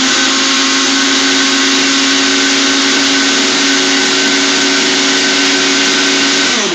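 Countertop blender running at a steady high speed, blending a chocolate mousse mixture, with a loud, even motor hum. Near the end the motor is switched off and winds down.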